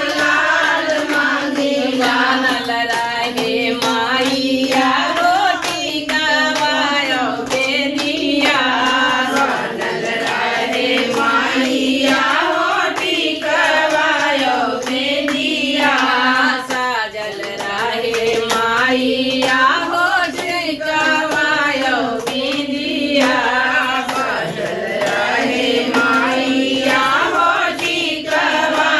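A group of women singing a Bhojpuri devotional folk song (Avsan Maiya geet) together in unison, keeping time with hand claps.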